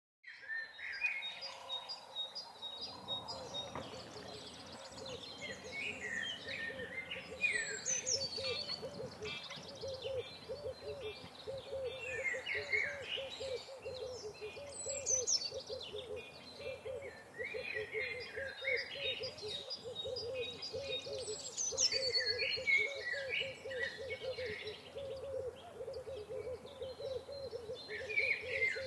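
Bird calls: chirping bird phrases every few seconds, three of them opening with a high falling whistle, over a steady fast-pulsing low call that runs throughout.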